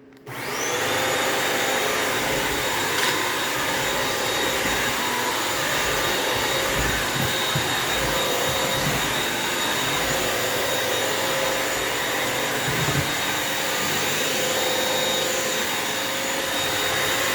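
Bissell wet-dry vacuum mop switching on and spinning up with a rising whine, then running steadily with a constant motor hum and whine.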